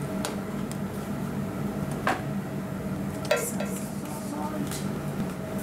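A metal spoon clinking and scraping against kitchen containers as a chopped herb mixture is spooned into yogurt, with two clearer knocks that ring briefly, about two and three and a half seconds in. A steady hum runs underneath.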